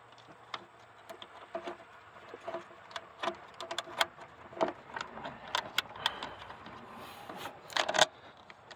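Scattered small metallic clicks, clinks and taps as a part is worked by hand to line it up on a car engine, with a louder knock near the end.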